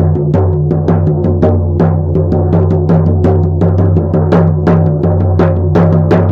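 Shamanic hand drum beaten in a steady, even rhythm, about three beats a second, with a low ringing carrying on between the strokes: drumming for a shamanic journey.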